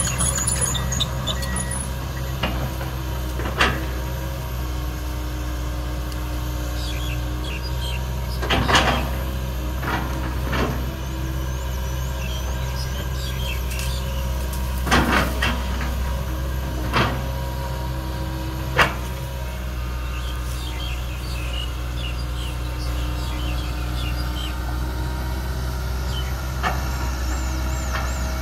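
Komatsu PC200 tracked excavator's diesel engine running steadily under load while it digs, with a scattering of short sharp knocks and creaks, about seven in all, as the bucket works against a termite mound of packed earth at the base of a tree.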